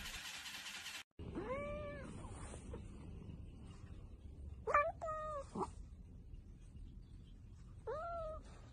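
Domestic cat meowing four times: one long meow, then two short ones close together, then one more near the end.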